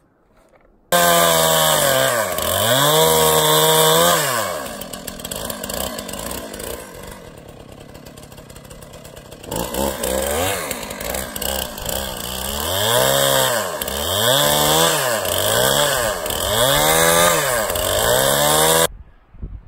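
Two-stroke chainsaw running and cutting into a tree trunk, its engine revving up and down again and again, dropping lower for a few seconds in the middle. It starts suddenly about a second in and cuts off suddenly near the end.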